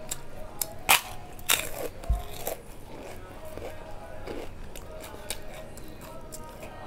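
Close-miked eating: a person chewing and crunching food, with sharp crackling crunches about a second and a second and a half in, among scattered smaller clicks.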